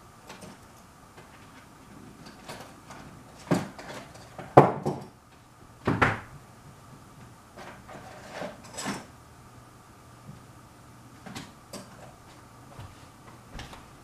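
Irregular knocks and short scrapes of objects being handled on a tabletop, the loudest a few seconds apart near the middle, over a faint steady hum.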